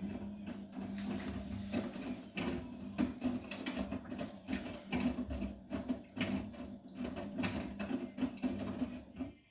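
Vestel CMI 97302 front-loading washing machine on a 70°C cotton wash, its drum turning: a steady motor hum with irregular knocks, clicks and sloshing as the wet laundry tumbles. It cuts off just before the end.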